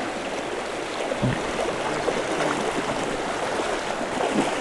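Shallow mountain trout creek rushing over a rocky riffle: a steady wash of running water.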